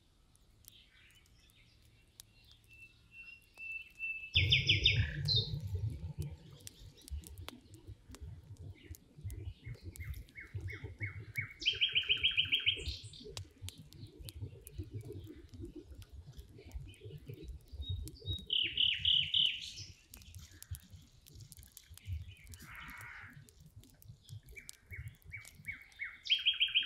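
A songbird singing the same short song four times, about every seven seconds: each phrase is a quick run of repeated notes that steps up in pitch and ends in a brief flourish.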